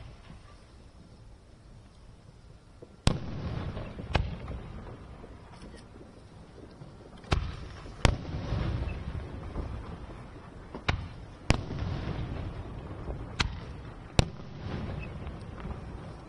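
Aerial firework shells bursting in a display: about eight sharp bangs beginning about three seconds in, irregularly spaced and sometimes in quick pairs, each followed by a long echo that dies away.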